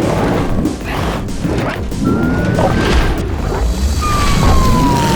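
A rapid run of cartoon crash and smash impacts over background music, with a few long gliding tones running through it.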